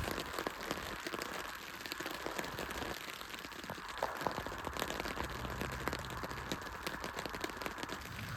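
Rain falling, a steady hiss dotted with the irregular ticks of individual drops.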